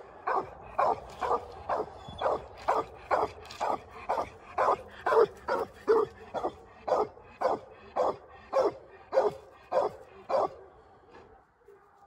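Young coonhound barking treed at a raccoon up the trunk: a steady string of short chop barks, about two a second, stopping about ten seconds in.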